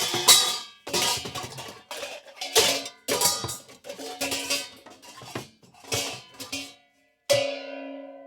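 Cartoon comedy sound effect of pots and pans being juggled and dropped: a quick run of metallic clanks and clatters. About seven seconds in comes one loud clang that keeps ringing.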